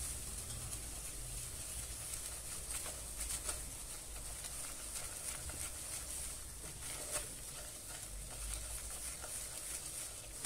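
Flour toasting in melted butter and oil in a stainless steel pot, sizzling faintly as a silicone spatula stirs it, with a few light scrapes and ticks against the pot.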